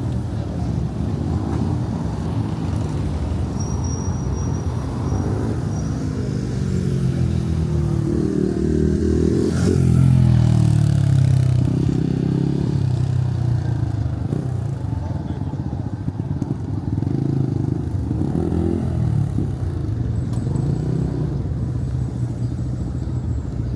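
Motor vehicle engines running in street traffic, with one vehicle passing close about ten seconds in, its pitch rising and then dropping as it goes by.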